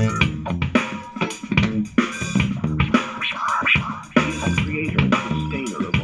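Music with a drum beat played through an Awei portable Bluetooth speaker and recorded unprocessed by an external microphone in the room.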